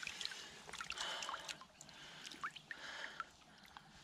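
Water splashing and dripping as a large chub is lifted out of a landing net in shallow river water, with irregular small splashes and drips throughout.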